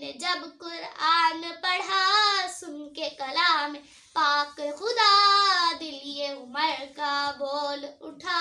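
A girl singing a naat, an Urdu devotional song, solo without accompaniment, in held, wavering notes broken by short breaths.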